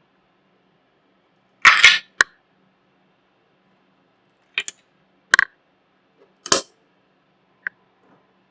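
A handful of sharp, irregular clicks and knocks of small hard objects: a loud cluster about two seconds in, then four or five single taps spaced a second or so apart.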